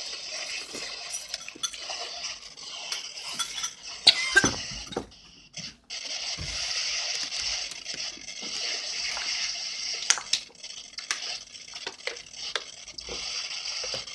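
Scattered light clinks of cutlery against dishes over a steady hiss, with a louder knock about four seconds in.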